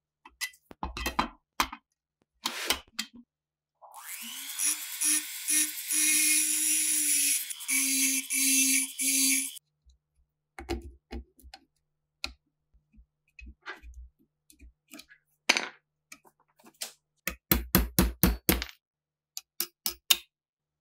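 Metal clicks and knocks from hand work on a rusty steel gun receiver held in a vise. A small power tool runs for about six seconds in the middle: it spins up at the start and ends in three short spurts. A quick run of knocks comes near the end.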